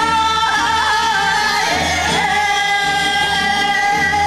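Korean folk song (minyo) sung by a woman into a microphone with a group of singers joining in, over musical accompaniment, with long held notes and wavering vocal ornaments.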